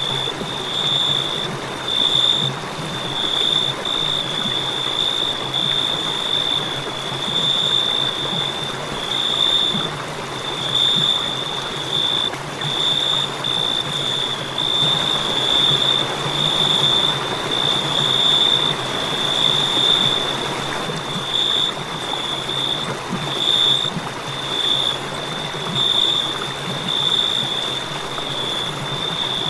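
Crickets chirping in a high, pulsing trill over a steady background hiss.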